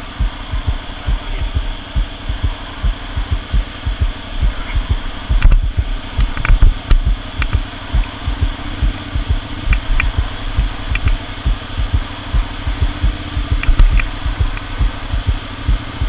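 Motorcycle ridden slowly over a log bridge, heard on the bike: a steady low engine drone under heavy, irregular low thumps, with a few faint clicks.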